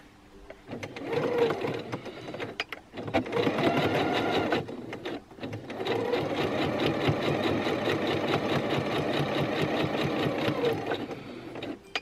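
Pfaff Quilt Ambition 2.0 sewing machine stitching a short seam in three runs: two brief runs, then a longer steady one of about five seconds. Each run speeds up as it starts, and the long run slows down as it stops.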